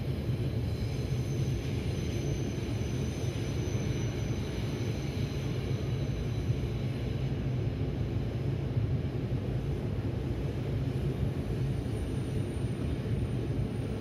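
An Odakyu Odawara Line train rolling past at a level crossing: a steady low rumble, with a faint high whine over the first few seconds.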